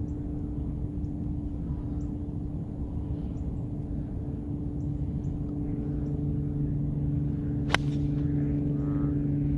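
A golf club striking a ball off fairway turf: one sharp crack about three-quarters of the way in, over a steady low hum.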